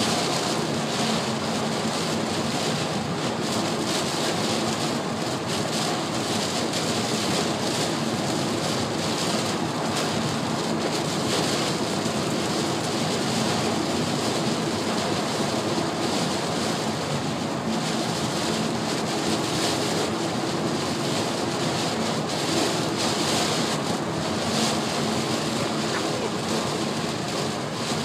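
Heavy rain falling on a moving car's roof and windshield, mixed with steady road and tyre noise, heard from inside the cabin.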